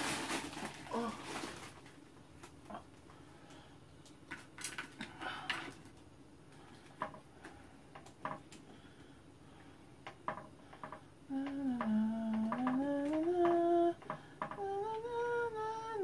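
Light clicks and scrapes of chopsticks stirring ramen in a frying pan, after a short rustle at the start. About eleven seconds in, a woman starts humming a slow tune in held notes; the humming is the loudest sound.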